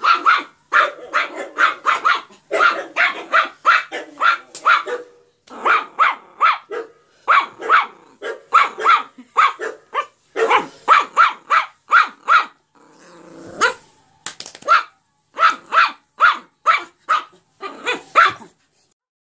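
Yorkshire Terrier barking over and over, short sharp barks in quick runs of about two to three a second, with brief pauses between runs.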